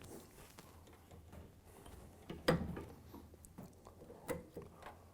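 Irregular clicks and light knocks of mower parts being handled during reassembly of the belt drive, with the loudest knock about two and a half seconds in.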